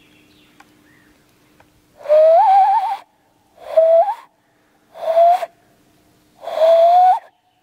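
Hand whistle blown through cupped hands: four separate notes, each sliding upward in pitch, the first with a warble.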